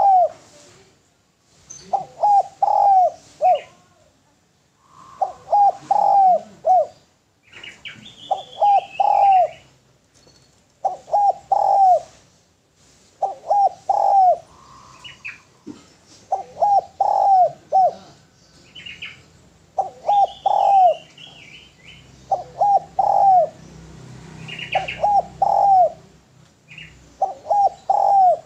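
Spotted dove (derkuku) cooing: a phrase of three or four coos repeated about every three seconds. Other small birds chirp now and then between the phrases.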